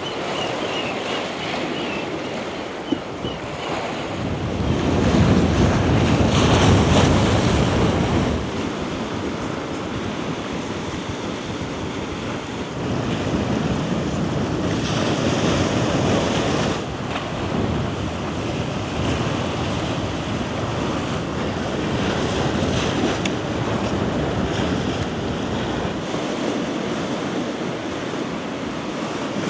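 Sea waves washing onto the shore, with wind buffeting the microphone. Two waves swell louder, about five seconds in and again around fifteen seconds.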